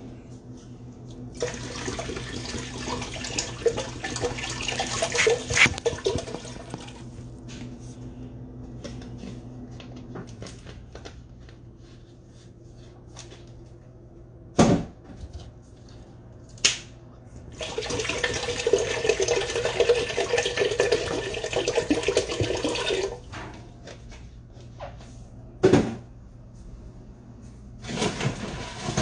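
Water pouring in two runs of several seconds each, with a few sharp knocks in between.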